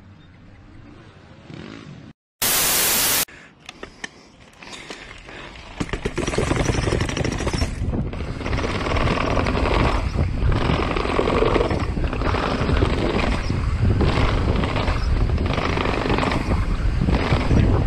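A short, loud burst of hiss about two and a half seconds in. From about six seconds on, a downhill mountain bike rattles and bumps over a long run of steps, with rough tyre noise and wind rushing over the handlebar-mounted microphone.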